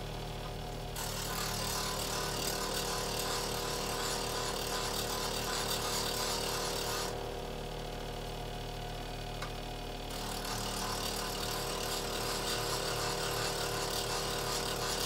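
Bench grinder running with a steady motor hum while a steel chisel blade is held to the spinning wheel to hollow-grind its bevel, giving a steady hissing grind. The grind starts about a second in, stops for about three seconds midway while the blade is off the wheel, then starts again.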